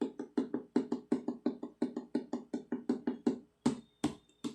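Fluffy slime being squeezed and poked by hand, making a fast run of sticky clicking pops about four a second, with three louder pops near the end.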